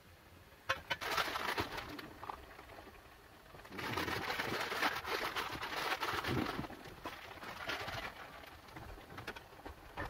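Crinkling of a plastic food packet being handled, in two bursts: a short one about a second in and a longer one from about four seconds in.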